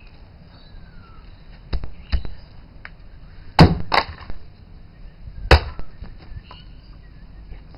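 Sledgehammer smashing a dead 500 GB hard drive: two hard hits in quick succession about three and a half seconds in, and a third about two seconds later, after a couple of softer knocks.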